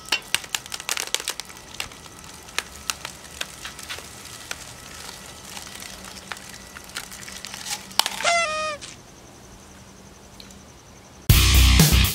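Sharp irregular clicks and crackles as a home-built mechanical claw squeezes a foil-wrapped chocolate bunny, then a brief honk that falls in steps about eight seconds in. Heavy metal music with electric guitar starts loudly near the end.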